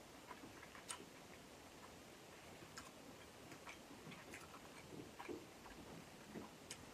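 Faint eating sounds of someone chewing king crab meat, heard as soft, scattered clicks, about one a second.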